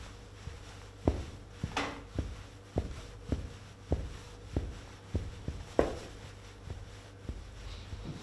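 Foley footsteps: black leather dress shoes stepping in place on a cloth laid over carpet, a bit under two soft steps a second, walking the pace of a man on a carpeted corridor. Two of the steps, about two seconds in and about six seconds in, land louder with a brief scuff.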